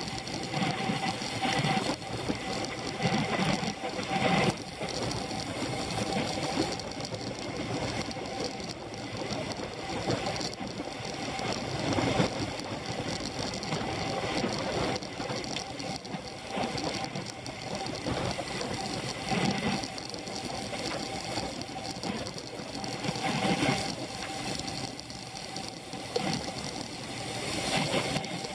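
Scott Foil road bike in motion, heard from an action camera clamped to its handlebars: a steady mechanical running noise from the drivetrain and tyres, with a faint constant hum.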